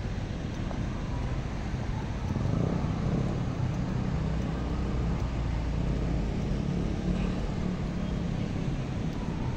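Steady low rumble of road traffic from cars on a nearby street.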